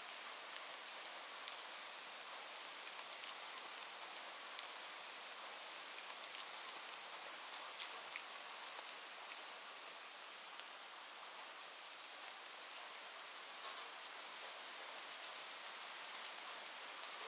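Steady rain falling: an even hiss with scattered sharp ticks.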